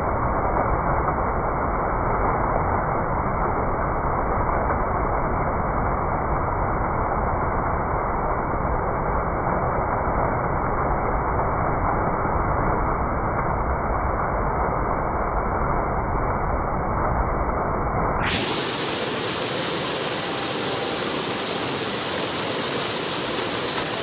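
An indoor mall fountain's tall water jet splashing steadily into its basin, a continuous rushing noise. It sounds muffled and rumbly at first, then about three-quarters of the way through it suddenly turns bright and hissy.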